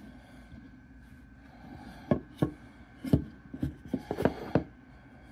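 A quiet room, then from about two seconds in a run of about eight sharp knocks and clicks over two and a half seconds, as hard objects are handled and set down.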